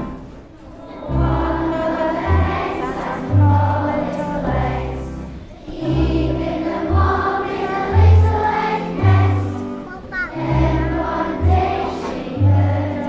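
A large group of young children singing together along to a backing track with a bouncy bass line.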